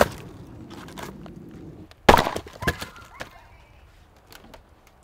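A plastic-wrapped bundle of firewood lands with a thud on hard-packed dirt. About two seconds in comes a second heavy thud, followed by a few lighter knocks.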